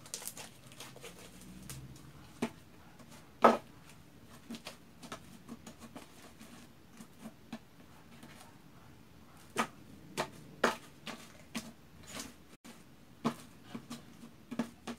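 Pink glue-and-detergent slime being kneaded, pressed and poked with the fingers against the tabletop: scattered soft clicks and small wet pops, the loudest about three and a half seconds in and a cluster of them a little after the middle.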